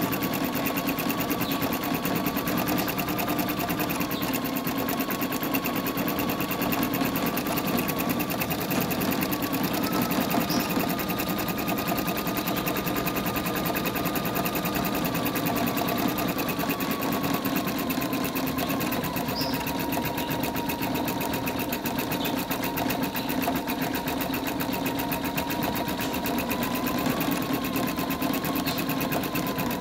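Embroidery machine stitching continuously at speed: a fast, even needle rhythm over a steady motor whine that wavers slightly in pitch.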